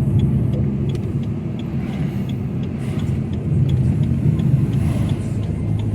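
Car engine running steadily under road noise while driving, with a low drone that swells slightly in the middle.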